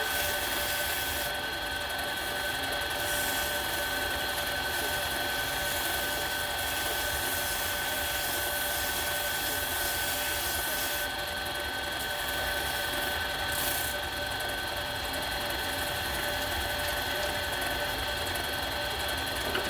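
Harbor Freight mini lathe running steadily, its motor giving a constant high-pitched whine over a hiss.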